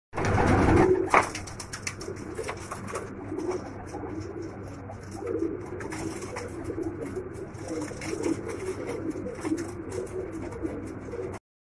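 Domestic pigeons cooing, a repeated low warbling coo, after a louder noisy rustle in the first second.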